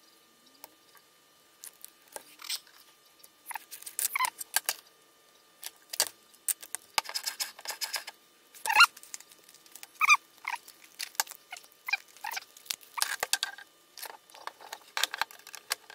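Hitachi angle grinder being reassembled by hand: scattered clicks, taps and short scrapes of its plastic and metal housing parts being fitted and handled, with the motor not running.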